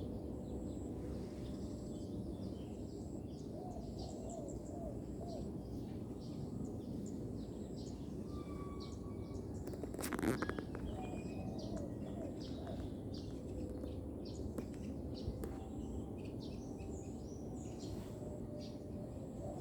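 Steady outdoor background noise with small birds chirping, and a brief knock about ten seconds in.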